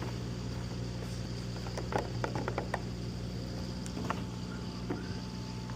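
Steady low hum of running machinery, with a quick run of light clicks about two seconds in and a couple of single clicks later.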